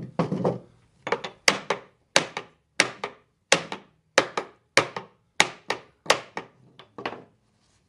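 Wooden box parts being knocked together with a tool, a steady run of sharp knocks on wood, mostly in quick pairs, tapping the mortise-and-tenon joints of a hexagonal box home during glue-up.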